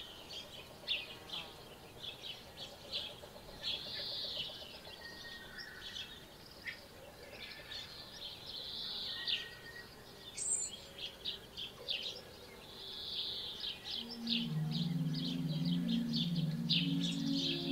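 Woodland birds chirping and twittering: many short high chirps and brief warbled phrases over faint background noise. Near the end a soft, sustained low music chord comes in underneath.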